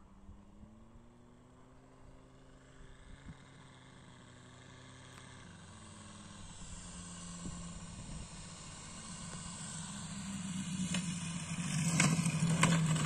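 Valach VM 250-R5 five-cylinder four-stroke radial engine of a large RC model plane running at low throttle on approach, growing steadily louder, its pitch dropping about halfway through. A few sharp knocks near the end.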